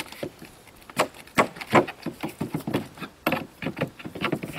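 Staples being worked out of a sheet of OSB with a metal hand tool: a string of irregular sharp clicks and short scrapes.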